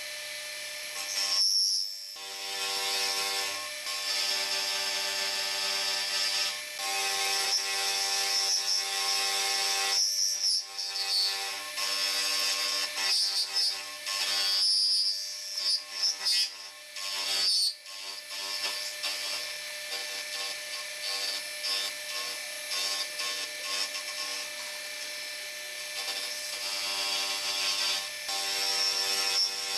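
Manual milling machine's end mill cutting metal, a steady ringing cut with several held tones that shift and break off briefly a few times as the feed stops and restarts, over a constant high hiss of mist coolant spraying the cut.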